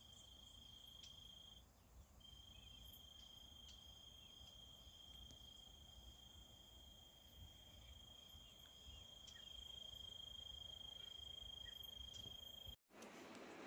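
Faint, steady trill of a cricket: one high note held without pause. It breaks off briefly about two seconds in, then carries on until it cuts off suddenly near the end.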